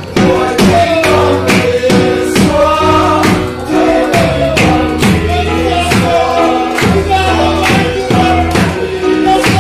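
Worship song: a group of voices singing together over a keyboard, with held chords and a steady beat about twice a second.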